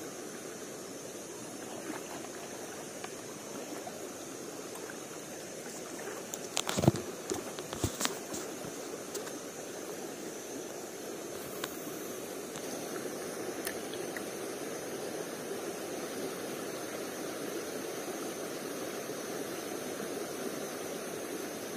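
Steady rush of flowing stream water. About seven seconds in, a short cluster of sharp clicks and knocks stands out above it.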